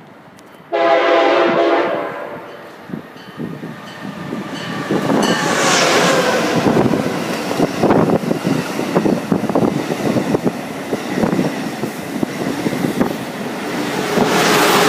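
Amtrak Acela train sounding its chord air horn in one sudden loud blast of just over a second. About five seconds in the train passes, a loud rush of noise with rapid rail clatter.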